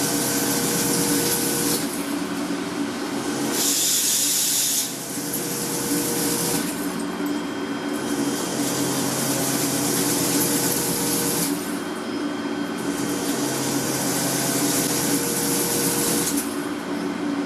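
Gear-cutting machinery running with a steady hum, under a hiss that comes and goes in stretches of a few seconds, loudest about four seconds in.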